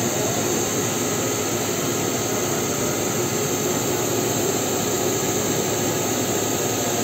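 Steady, unchanging machinery drone: an even rushing noise at constant loudness with a few faint steady tones underneath.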